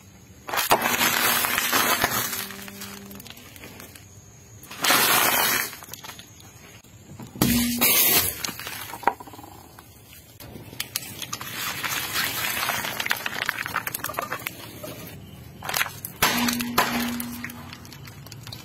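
A car tyre rolling over and crushing sealed plastic snack packets and small plastic bottles, heard as about five separate bursts of crackling with quieter gaps between them.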